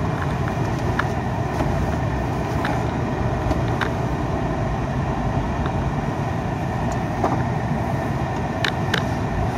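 Pickup truck driving: a steady low rumble of engine and road noise, with a few scattered light clicks and rattles.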